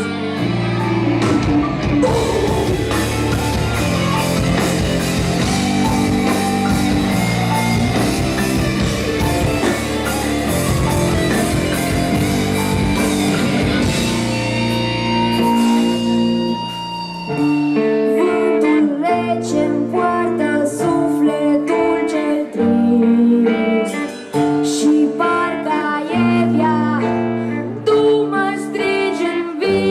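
Rock band playing: guitars, bass and drums. About 17 seconds in, the dense full-band sound gives way to short, choppy chords with brief gaps between them.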